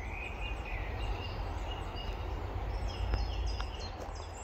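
Outdoor ambience: a steady low rumble and hiss, with small birds chirping in short, repeated high notes, more busily in the second half. A few faint ticks sound around three to four seconds in.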